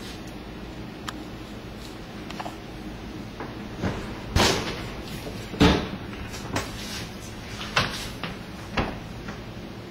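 Oven door of a white gas range being shut and handled: about six separate clunks and knocks, starting about four seconds in, the loudest a little past halfway.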